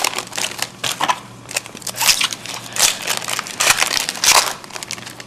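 Plastic-foil trading card pack wrapper being torn open and crumpled: irregular crackling and crinkling rustles, louder about two, three and four seconds in.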